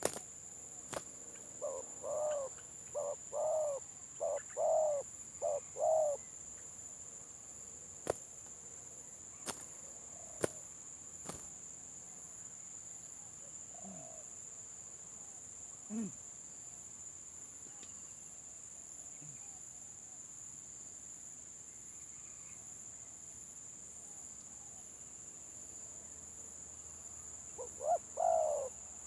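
Spotted dove cooing: a halting, stuttered phrase of about six coos of the 'gagap' call type, then another short coo phrase near the end. A few sharp clicks fall in between.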